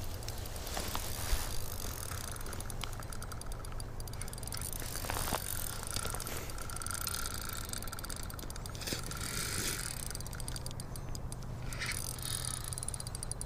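Ice fishing reel ratcheting in quick runs of clicks as line is worked in and out while fighting a big lake trout at the hole, over a steady low rumble.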